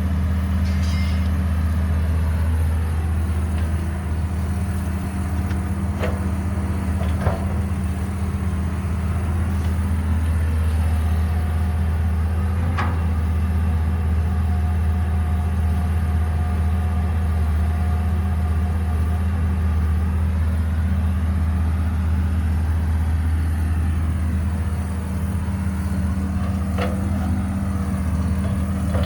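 Caterpillar 312B excavator's diesel engine running steadily, with a few brief sharp knocks and a faint whine in the middle.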